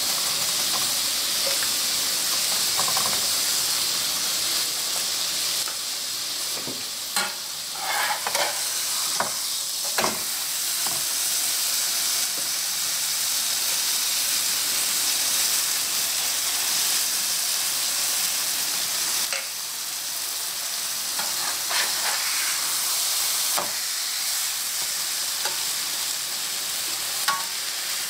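Dried pollack frying in oil in a nonstick frying pan, with a steady sizzle. A spoon clicks and scrapes against the pan now and then as red seasoning paste is spread over the fish.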